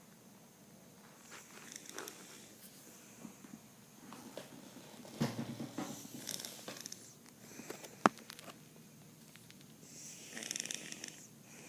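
A sleeping person snoring: irregular, breathy snores a few seconds apart, with a sharp click about eight seconds in.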